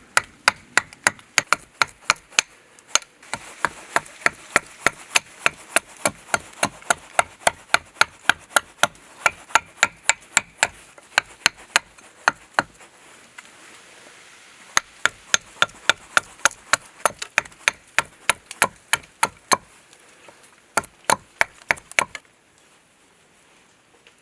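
Steady chopping of a sharp hand edge tool into green wood while roughing out a spoon blank: crisp strikes at about three a second. The chopping breaks off briefly about halfway through and stops shortly before the end.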